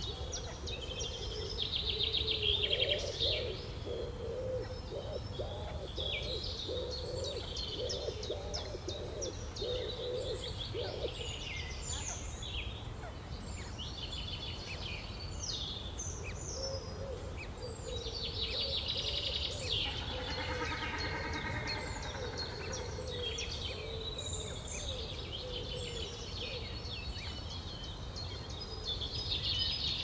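Small songbirds singing, a busy mix of high chirps and trills, over a steady low rumble. A lower wavering tone runs underneath much of the time, and a short call with several stacked tones comes about twenty seconds in.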